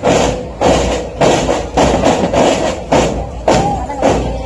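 Military marching drum corps beating out a steady march rhythm: heavy drum strokes a little under two a second, each with snare rattle over it.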